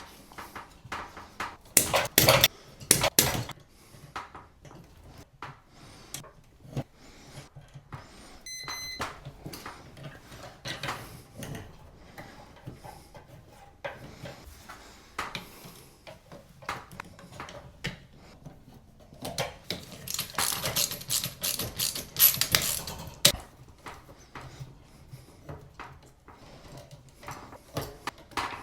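Hands-on work with tools and parts: scattered clicks, knocks and clatter, with two louder stretches of rasping or scraping, one about two seconds in and one about twenty to twenty-three seconds in.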